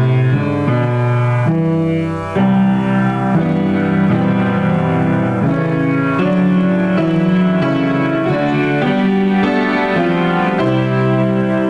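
Grand piano played in an improvisation: held chords and low bass notes, changing every second or so.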